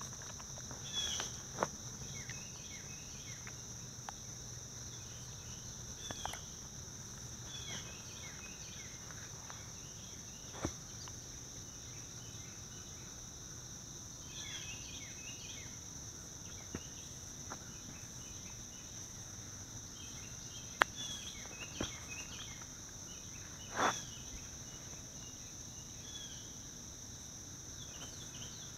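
Steady high-pitched drone of a chorus of insects such as crickets, with scattered short chirps and a few sharp clicks or knocks, the loudest about 21 and 24 seconds in.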